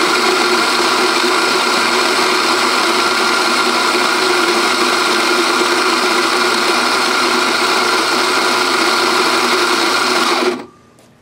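Rancilio Rocky flat-burr coffee grinder running steadily at its finest setting (zero), grinding coffee beans. It switches off near the end.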